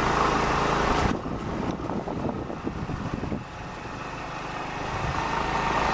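Small motorbike engine running at low speed, with a rushing noise over it that cuts off suddenly about a second in. The engine drops quieter around the middle and picks up again toward the end.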